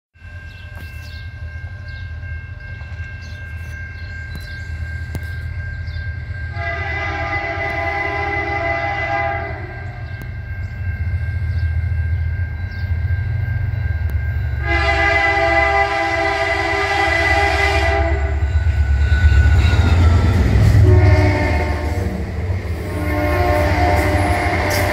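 Rocky Mountaineer passenger train's diesel locomotive approaching and passing, its engine and wheel rumble growing louder as it nears. The air horn sounds two long blasts, then a short one, then a long one, the pattern of the standard grade-crossing signal.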